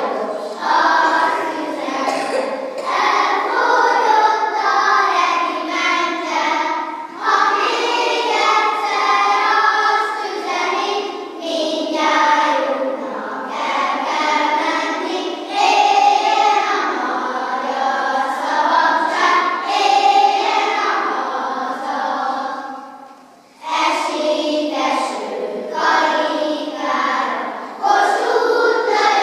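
Children's choir singing a song in unison, phrase by phrase, with a brief pause between phrases late on.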